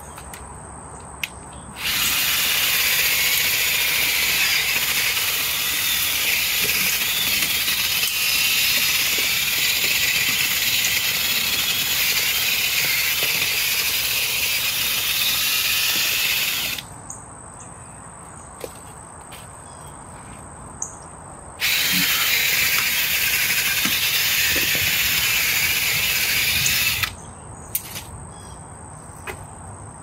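Cicadas buzzing loudly in a steady, high chorus that starts sharply, runs for about fifteen seconds, breaks off, then starts again for about five more seconds. A thin steady high tone and scattered light knocks from the digging sit underneath.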